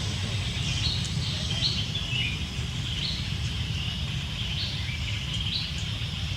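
A bird chirping in short, high, repeated calls about once a second, over a steady low rumble.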